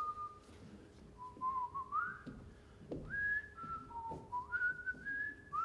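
A person whistling a slow tune: a single pure note that steps and slides between pitches, pausing between short phrases. A few faint knocks come through underneath.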